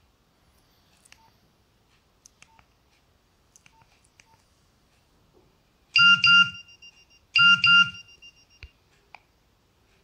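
A few faint key presses on a Nokia 3100 mobile phone, then its speaker plays a short electronic alert tone twice, about a second and a half apart. Each burst is a quick pair of loud beeps with a low buzz under it.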